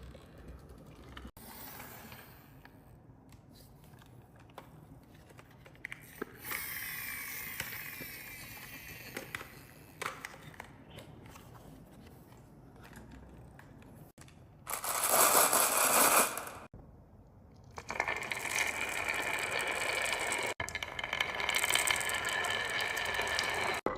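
Marbles rolling and clattering down a wooden HABA marble run, with scattered clicks as they knock against the track. A loud rush of rolling lasts about two seconds, a quarter of the way past halfway, and a steady rolling sound carries on through the last third.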